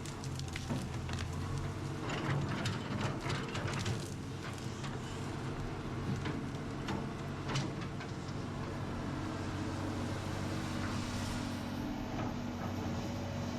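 Excavator engine running steadily, with scattered knocks and clanks in the first half that later die away, leaving only the engine.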